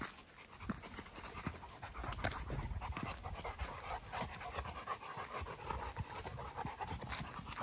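Dog panting.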